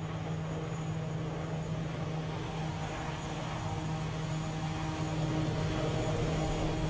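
Steady jet-like aircraft engine hum: a low drone under a rush of air that slowly grows louder.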